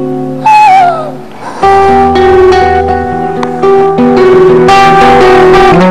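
Slow guitar music with plucked, held notes. There is a short falling vocal sound about half a second in, and the music swells again from under two seconds in.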